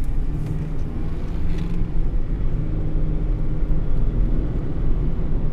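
Road noise inside the cab of a 2007 Ford F-150 pickup at speed, with a steady low humming under it. The hum is taken by the driver for a worn driver-side wheel bearing.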